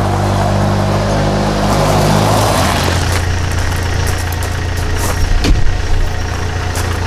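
Car engine running, its pitch shifting about two and a half seconds in and then holding steady.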